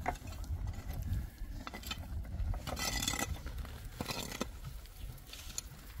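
A long-handled hoe's metal blade scraping and striking dry, stony soil in several separate strokes, the longest scrape about three seconds in, over a steady low rumble.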